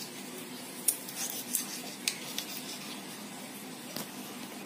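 Kitchen knife slicing okra pods lengthwise into strips, the blade giving a few light, irregular clicks against a hard countertop over a steady low background hum.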